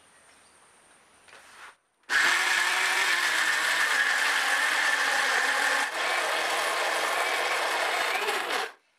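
Electric kitchen mixer grinder running, grinding dry grated coconut to a fine powder in its stainless steel jar. It starts about two seconds in, dips briefly midway, and stops just before the end.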